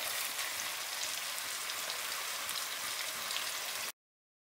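Onion, tomato and lentil sauce sizzling in a steel pot as purslane is tipped in, a steady hiss with small crackles. The sound cuts off suddenly near the end.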